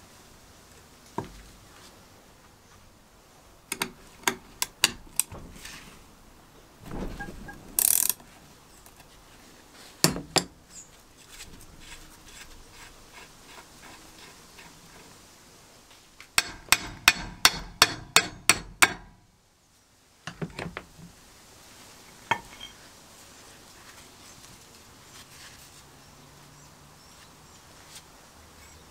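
Rusty, unrestored benchtop lever metal shear worked by hand: scattered metal-on-metal clanks and knocks as the handle and blade move on their pivot. About two-thirds of the way in comes a quick, even run of about nine sharp clicks, roughly three a second.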